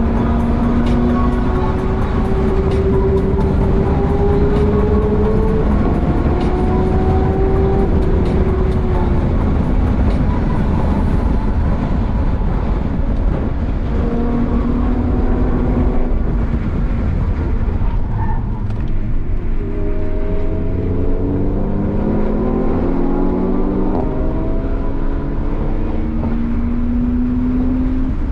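BMW E36 320i Touring's 2.0-litre straight-six engine heard from inside the cabin at track speed, over road rumble and wind. The engine note holds and climbs slowly for the first half and eases off briefly past the middle. It then climbs again in several steps under acceleration near the end.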